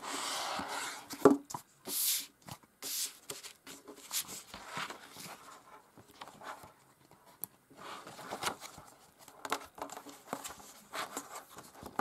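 A hardcover book being handled: pages and the cover swish as it is turned and closed, with one sharp knock about a second in, then quieter scattered rustles and taps as the book is shifted about.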